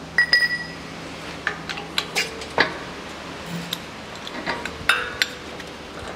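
Steel press parts clinking and knocking as a steel spacer sleeve and an old wheel bearing are handled and lifted off a hydraulic press. There are about a dozen sharp metal clinks, a few ringing briefly, with the loudest knock about two and a half seconds in.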